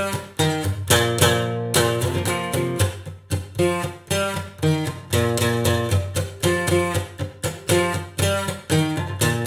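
Background music: guitar strummed in a steady, even rhythm.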